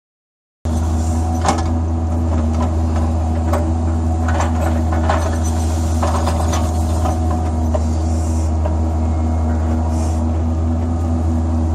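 Excavator's diesel engine and hydraulics running steadily, heard from inside the cab, starting suddenly about a second in. Scattered knocks and scrapes come from the bucket working in dry, stony soil in a trench.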